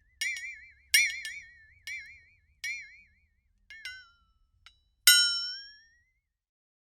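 Sound effect of bright chime-like dings struck about seven times at irregular spacing, each ringing briefly with a warbling pitch. The last and loudest one, about five seconds in, slides upward as it fades.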